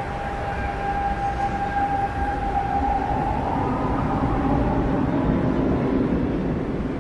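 Lisbon Metro train running: a steady whine rises slightly in pitch about three seconds in, over a rumble that grows louder through the middle.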